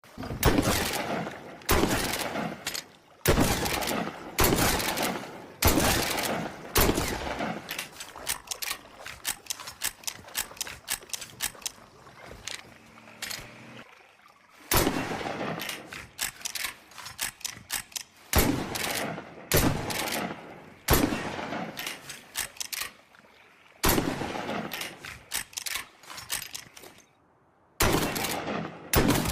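Cornell 40 shotgun sound effect: a series of loud shotgun blasts, each with a short ringing tail, mostly about one to one and a half seconds apart. Between the blasts come stretches of quicker, quieter sharp clicks and reports, and there is a brief pause about 27 seconds in.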